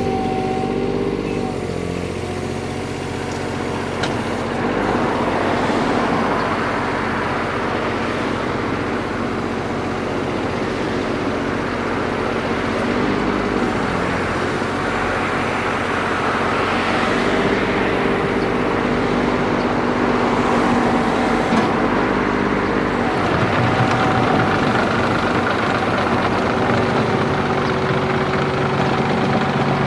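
Komatsu PC10-7 mini excavator's diesel engine running under load, its note and pitch shifting several times as the machine is worked.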